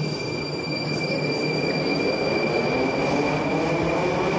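Metro train running, heard from inside the passenger car: a steady rumble with a thin, high-pitched squeal held on one note, and a lower whine slowly rising in pitch.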